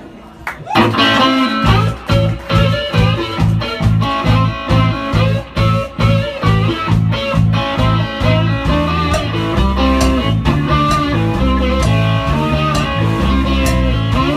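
Live blues band music with slide guitar, bass, drums and keyboard. After a short lull the full band comes in loud about a second in and plays on in a steady pulsing groove, with the bass notes and drum hits keeping the beat.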